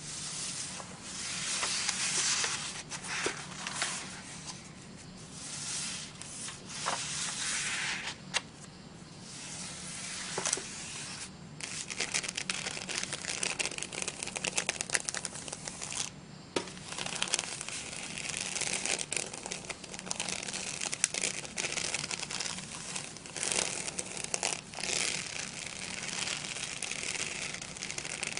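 Sheets of scrapbook cardstock being slid and shuffled, then fingernails scratching and tapping over embossed faux-crocodile textured paper, which gives a dense crackle of small ticks and scratches from about halfway in.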